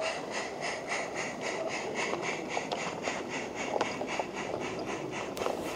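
A 16mm-scale garden-railway goods train rolling past on its track: a steady wheel rumble with a few sharp clicks, over a fast, even pulsing hiss of about six beats a second.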